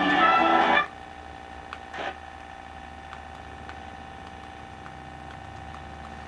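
Television programme music cuts off abruptly under a second in as the channel is changed. It is followed by a faint steady hum with a thin held tone and a few faint ticks while the set searches for the next channel.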